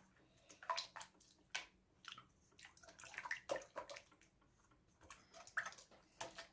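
Spatula stirring a thin mix of warm water, sugar and instant yeast in a stainless steel bowl: faint, irregular swishes and scrapes of liquid against the metal.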